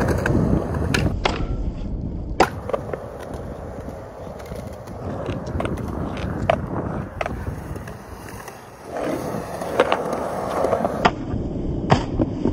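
Skateboard wheels rolling on concrete, with several sharp clacks through the run as the board pops and lands.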